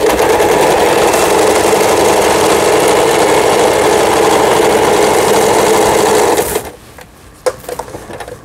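Janome JF1014N household sewing machine running steadily at speed, sewing a triple straight stretch stitch that goes forward and back through fabric. It stops abruptly about six and a half seconds in, and a single faint click follows.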